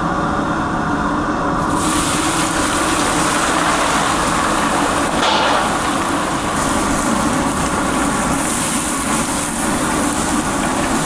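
A loud, steady mechanical roar with a low hum. A hiss joins it about two seconds in and then holds.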